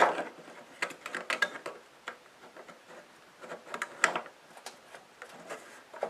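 Small metal parts of a kerosene heater's wick adjuster mechanism clicking and tapping as they are handled and pushed into place by hand: irregular light clicks, busiest in the first two seconds and again about four seconds in.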